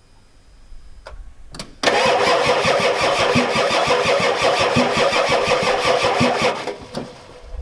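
The starter cranks a 1993 Ford F-250's 7.3L IDI V8 diesel with an even, rhythmic churn for about five seconds without the engine firing, then stops. The engine won't start, which the owner puts down to an injection pump too weak to get fuel to the injectors.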